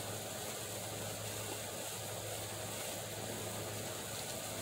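A steady low hum over an even hiss, with no distinct strokes or knocks.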